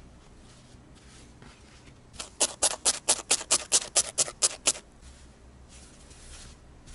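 Felting needle stabbing repeatedly into a wool-covered sponge bun: a quick run of about a dozen sharp pokes, roughly five a second, lasting a couple of seconds.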